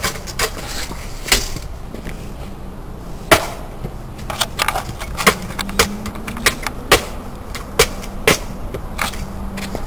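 A PlayStation 2 console being smashed: about a dozen sharp, irregular blows, the loudest about three seconds in.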